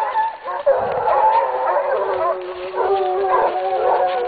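A pack of scent hounds giving tongue while working a hare's scent line (the rapprocher stage, closing in on where the hare lies). Several dogs bay at once in overlapping voices with long drawn-out notes, without a break.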